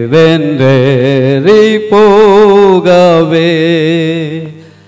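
A man singing a Tamil Christian hymn solo, with long held notes and a wavering vibrato; the last note fades out near the end.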